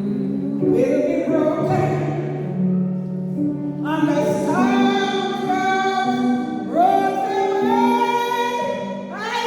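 Gospel song: sung voices in harmony holding long notes, each phrase scooping up into its first note.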